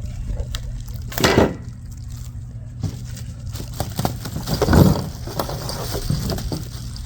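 Wind rumbling on the microphone, with two louder bursts of handling noise from the parts and packaging: one about a second in and a longer one near five seconds.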